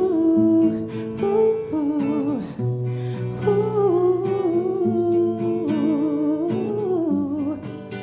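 Song: a woman's voice humming a wordless, wavering melody over acoustic guitar.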